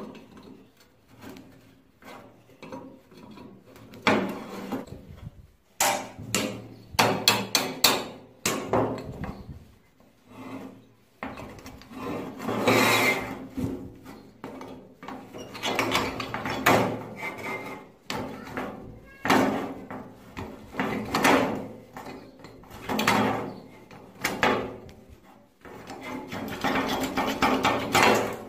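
Steel rod and pliers working the rusty steel folding hinge of an old kick scooter as it is taken apart: an irregular series of metal knocks, clinks and scrapes.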